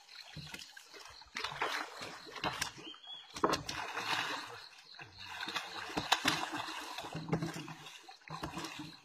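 Water splashing and sloshing, with several sharp splashes.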